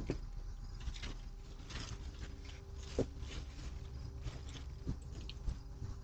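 Faint scattered taps and knocks, the clearest about three seconds in, over a steady low hum picked up by a doorbell camera's microphone.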